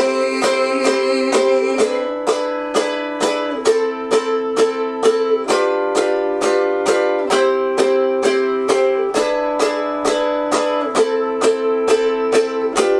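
Solo ukulele strummed in a steady rhythm, cycling through the chords C, E7, Am and G7 as an instrumental interlude.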